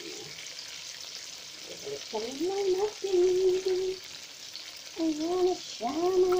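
Chicken wings deep-frying in a pan of oil, sizzling steadily. From about two seconds in, a voice hums three drawn-out notes over the sizzle, sliding up into each note and holding it.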